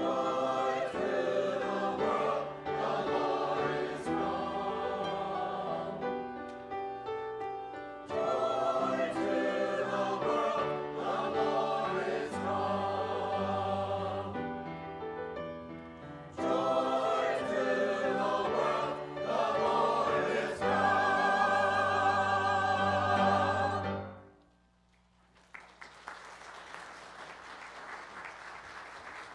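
Choir singing in phrases over sustained low accompanying tones. The music stops about five seconds before the end, leaving a faint, even noise.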